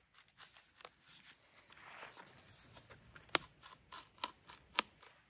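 Poplar bark being pried off a log with two steel tire irons: scattered sharp clicks and small cracks as the bark separates from the wood, with a few louder ones in the second half.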